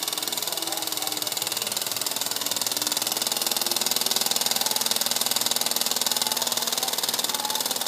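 Small steam donkey engine running steadily, its strokes a fast, even beat over a constant hiss, a little louder from about three seconds in.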